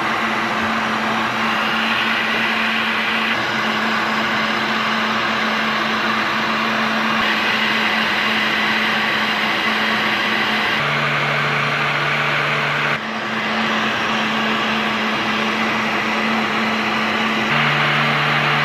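Handheld heat gun running steadily while it heats a plastic car taillight: a constant rush of blown air over a low motor hum. The tone shifts slightly a few times.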